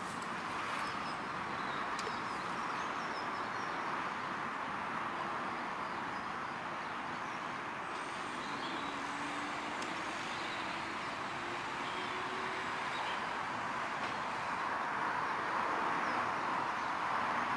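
Steady hum of distant road traffic, with a faint passing vehicle tone rising slightly about halfway through and a few faint bird chirps above it.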